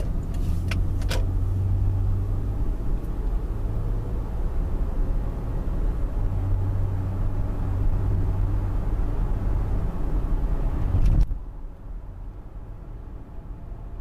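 Steady low rumble of a car's road and engine noise heard inside the cabin while driving, with a couple of short clicks about a second in. At about eleven seconds the sound drops suddenly to a quieter, duller rumble.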